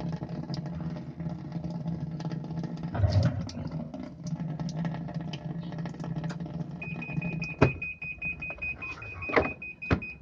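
Sharp ES-N70EY washing machine filling with water, a steady low hum throughout. A high steady tone joins about seven seconds in, with a few sharp clicks near the end. The water runs straight back out through the drain valve, whose rubber seal has gone hard and no longer holds water.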